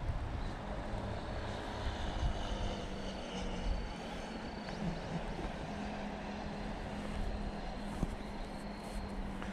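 Steady drone of a distant engine, holding one low hum, over a continuous rushing noise.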